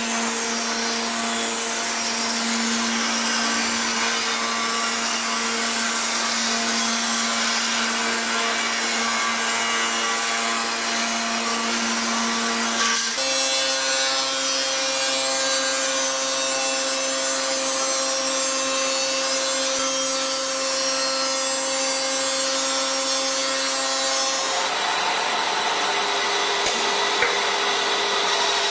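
Electric power tool working wood: a motor's steady whine over a rough rasping noise. The pitch of the whine jumps up abruptly about 13 seconds in, and near 25 seconds it gives way to a higher, fainter hum under more hiss.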